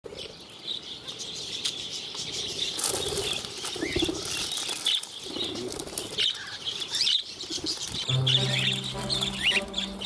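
A flock of budgerigars and cockatiels twittering and chirping continuously, with quick rising and falling chirps and brief bursts of wings fluttering. Background music comes in near the end.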